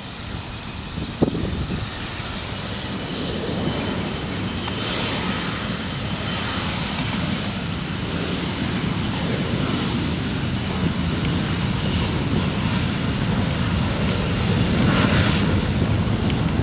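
Embraer ERJ-145 regional jet's two rear-mounted turbofan engines running, a steady jet noise with a hissing high whine that grows gradually louder. A single sharp click about a second in.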